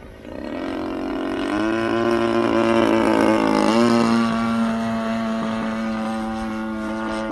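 DLE-35 single-cylinder two-stroke gasoline engine of a Raven 73 RC aerobatic plane in flight. The engine note swells in just after the start and steps up in pitch twice, about a second and a half in and again near four seconds in. It is loudest around three to four seconds in, then holds steady.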